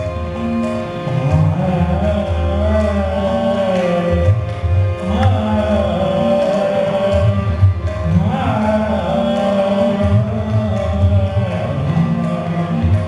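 Male Indian classical vocalist singing a raagamaalika in long held notes that glide between pitches, over a steady drone and tabla accompaniment.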